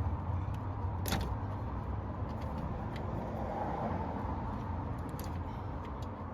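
Plastic clicks and handling noise as grille-light wiring connectors are worked loose, with one sharp click about a second in and a few lighter ticks near the end, over a steady low rumble.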